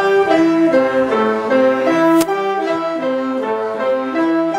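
Student wind ensemble of saxophones, trumpet and trombone playing a D minor 7 arpeggio together, stepping up and down through root, third, fifth and seventh in a repeating pattern. A short sharp click about two seconds in.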